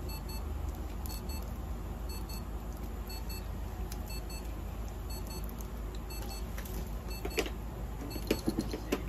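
Electronic medical equipment beeping, a short double beep repeating about once a second, over a steady low hum. A few short knocks of handling come near the end.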